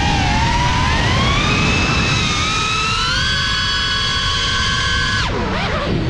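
FPV quadcopter's brushless motors whining, several tones gliding up and down together with the throttle over a rush of air. About five seconds in the pitch drops sharply as the throttle is cut, then climbs again.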